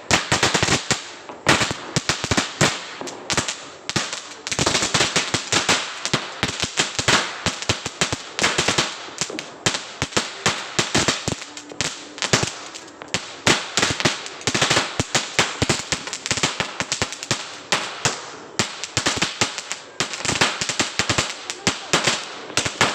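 Winner Kungfu 1000-sound firecracker, a mini 1000-wala lari chain, going off in a long, dense run of small sharp bangs that come quickly and unevenly without a pause.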